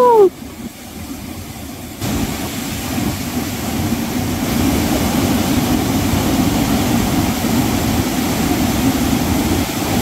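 Water rushing out through a dam's opened spillway gates: a steady, dense rushing noise that steps up in loudness about two seconds in and then holds.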